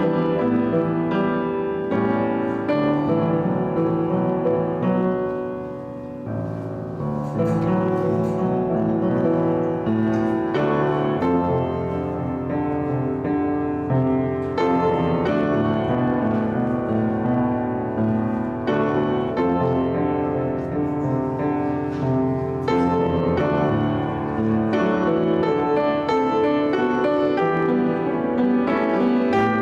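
Solo piano music played at an even pace, with a brief softer moment about six seconds in.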